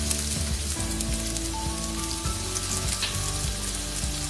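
Chopped red onion frying in hot oil in a pan, a steady sizzle.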